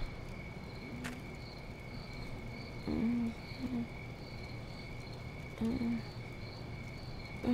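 Crickets chirping steadily: a continuous high trill with a pulsing chirp above it about twice a second, over a low rumble. A few short, low vocal sounds, like groans or breaths, come about a second in, around three seconds in and near six seconds.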